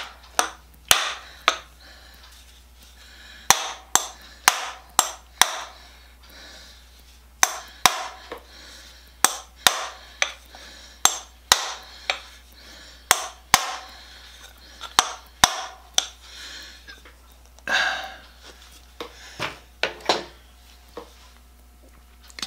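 Repeated sharp knocks, singly and in groups of two to four, as a metal ferrule is driven onto the end of a turned mulberry saw handle until it seats. The knocks stop after about sixteen seconds, followed by a brief rustle and a few light taps.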